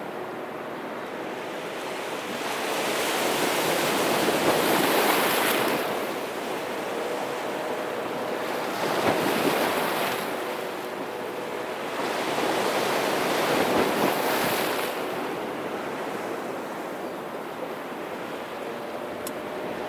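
Black Sea surf breaking on the shore, each wave swelling and washing back about every four to five seconds.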